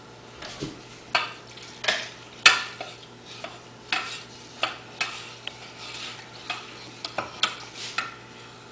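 A utensil stirring milk into a sugar and flour mixture in a saucepan, scraping against the pan in short, uneven strokes, a little under two a second.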